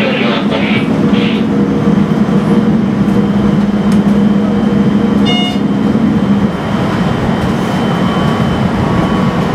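Hokuetsu Express HK100 electric train running, heard from the driver's cab: a steady rumble of wheels on rail with a low motor hum that drops away about six and a half seconds in. A short high beep sounds a little past halfway.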